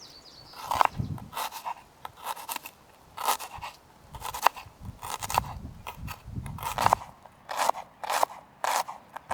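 Irregular crisp crunching and scraping strokes from food preparation, about a dozen of them, some coming in quick pairs.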